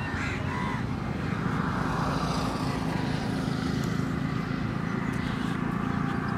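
Steady low rumble of a running motor vehicle engine, with a few faint short chirps in the first second.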